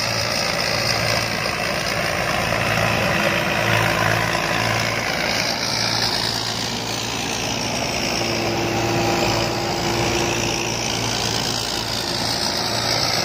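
Combine harvester's engine running steadily under a dense wash of machinery noise, with a steady higher hum joining for a few seconds past the middle.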